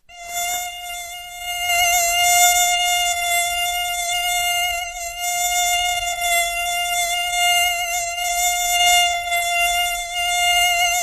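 Mosquito wingbeat whine: one steady high-pitched buzzing tone that wavers slightly. It cuts out for a moment at the start and swells back within about half a second.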